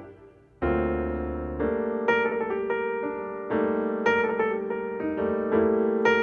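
Piano music: a fading note, then a chord comes in about half a second in, followed by a melody of single notes over held chords.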